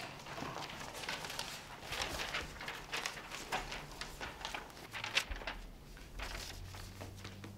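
Quiet rustling of paper sheets and scattered footsteps, a string of irregular small rustles and taps.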